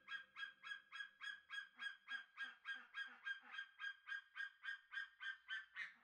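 Eagle calling: a long run of short, sharp call notes repeated evenly, about four to five a second.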